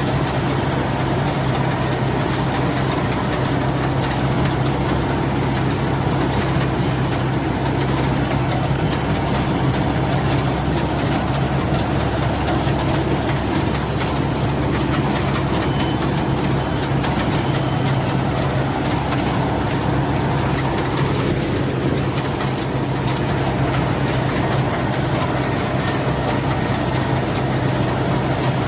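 Rice combine harvester running steadily: a constant engine drone with a strong low hum and no change in speed.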